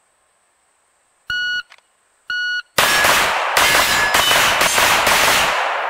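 Shot timer sounding two short beeps, then a fast string of pistol shots at steel plate targets for about three seconds, with the plates clanging on hits, the echo fading away near the end.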